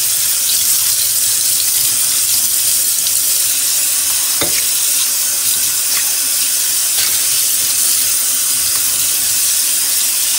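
Kitchen faucet running steadily, its stream splashing into a bowl being washed under it in a stainless steel sink, with a few faint knocks of the bowl along the way.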